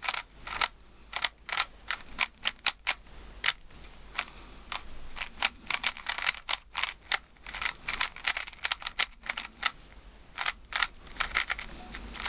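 MoYu AoLong V2 GT 3x3 speedcube being turned by hand: sharp plastic clacks of the layers turning, several a second in uneven runs with short pauses.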